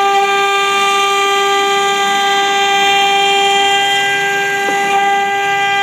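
Acctek CNC router's spindle running at speed, a loud steady high whine with overtones, while its bit mills a pocket into a wooden board under a hiss of cutting noise.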